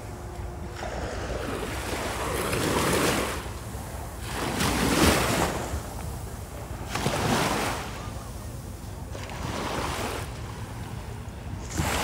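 Surf breaking and washing up the beach, swelling and easing every two to three seconds. Wind on the microphone adds a steady low rumble.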